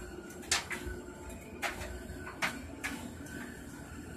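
Aquarium air-stone bubble curtain running: a steady low hum under irregular sharp pops and clicks, the loudest about half a second in.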